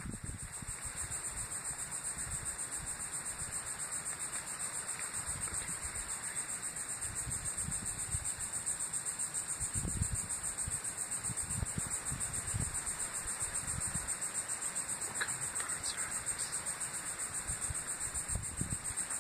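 Steady high-pitched hiss with a fast, even flutter, and scattered low rumbles from the phone being moved. No calls from the cranes stand out.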